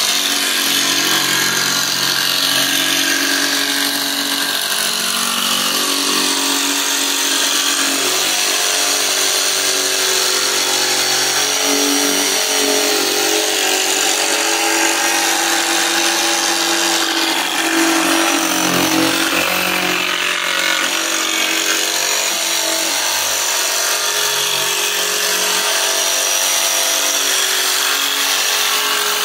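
DeWalt DCS335 cordless barrel-grip jigsaw running continuously, its scrolling blade cutting a freehand curve through plywood.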